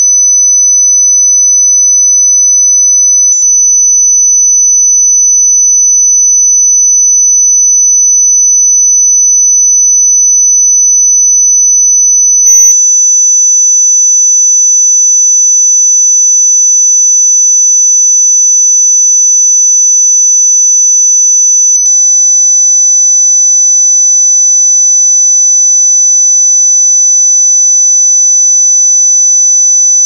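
Continuous synthesized 6 kHz sine tone, a steady high-pitched whistle sold as an anti-bark dog whistle meant to make dogs attentive and stop barking. It is broken only by a brief click about every nine seconds.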